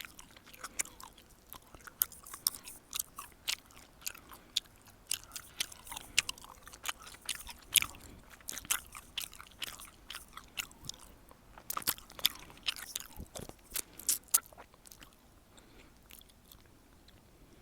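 Gum chewed close to the microphone: a quick, irregular run of wet smacks and clicks from the mouth, thinning out near the end.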